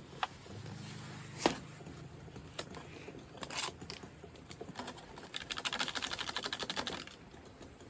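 Instant udon cup packaging being handled and opened: scattered clicks and knocks, the sharpest about a second and a half in, then a rapid crackling tick-run lasting about a second and a half late on.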